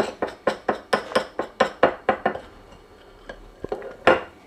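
A spoon clinking against a dish in quick, regular strokes, about four or five a second, as a thick, creamy butter mixture is stirred. After about two seconds the strokes thin out to a few scattered clicks, then one louder knock near the end.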